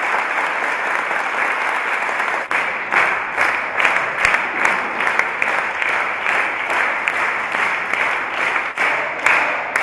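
A group of people applauding, which after about two and a half seconds turns into hand-clapping together in a steady rhythm, about two to three claps a second.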